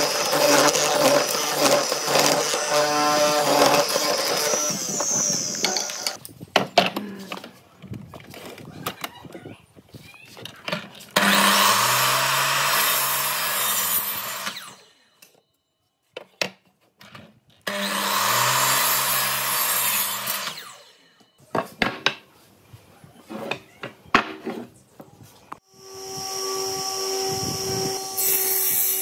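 A hollow-chisel mortiser running and chopping into a wooden workpiece, followed by clatter of wood being handled. A Makita sliding miter saw then makes two cross-cuts, each a few seconds long, its motor pitch falling as it winds down after the cut. Near the end a table saw starts up and runs as a block is fed toward the blade.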